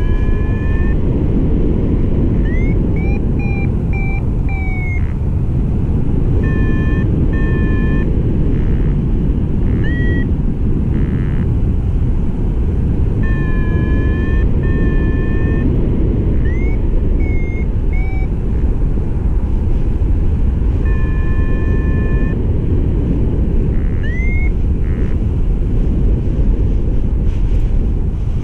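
Wind rushing over the microphone in flight, with a paragliding variometer sounding on and off over it: short beeps and quick rising chirps.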